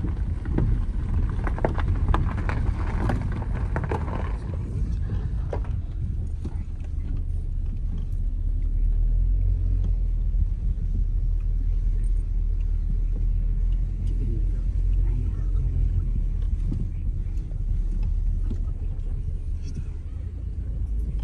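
Steady low rumble of a Toyota car's engine and tyres, heard from inside the cabin as it drives along.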